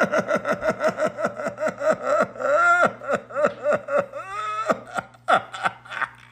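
Kitten giving a rapid string of short, high mews, about four a second, each dropping in pitch, with two longer drawn-out cries in the middle.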